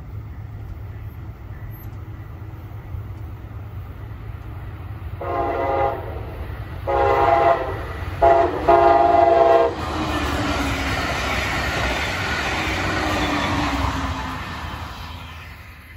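Brightline passenger train sounding its horn in the grade-crossing pattern: two long blasts, a short one and a final long one. The train then rushes past at speed, a loud wash of rail and wheel noise that fades near the end.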